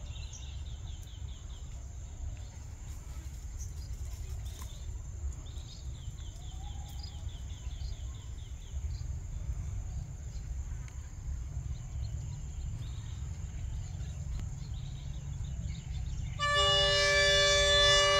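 RHN diesel railcar running with a steady, deep engine rumble, then sounding its horn about sixteen seconds in: a loud, held, multi-note blast.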